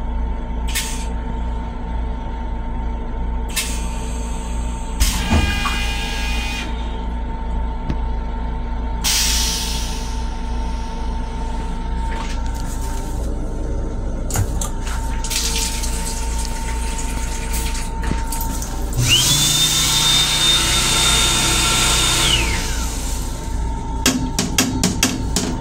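Long Island Rail Road M7 railcar toilet flushing: a sudden loud rush with a whine that rises, holds steady for about three seconds, then falls away, about three-quarters of the way through. It sits over the steady low rumble of the moving train, with shorter rushes earlier and a run of quick clicks near the end.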